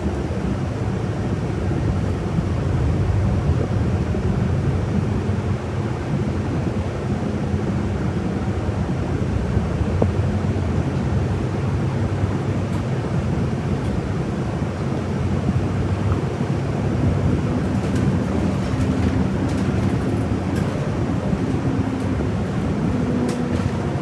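City bus running along the road, heard from inside the cabin near the rear: a steady engine hum over road noise. The engine note fades in the middle and comes back slightly higher later on.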